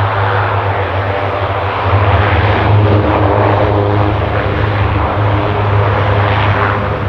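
Lockheed Martin KC-130J Hercules's four Rolls-Royce AE 2100 turboprops and six-bladed propellers running loud and close on landing: a steady low propeller drone with a ladder of humming tones above it under a broad rushing roar.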